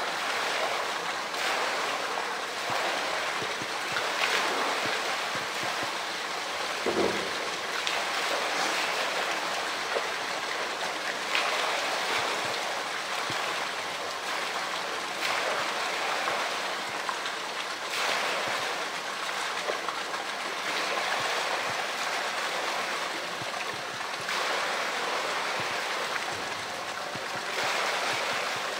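Pool water splashing and sloshing steadily as a polar bear wrestles a blue plastic drum in the water, with a few sharper hits scattered through.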